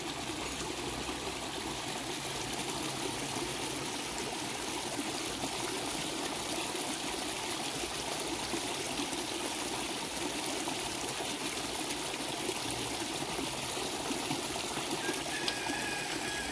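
A small shallow stream trickling steadily over rocks.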